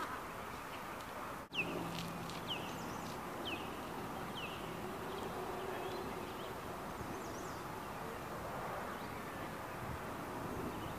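Outdoor background noise with a few short, falling bird chirps, about one a second for a few seconds after a brief dropout early on.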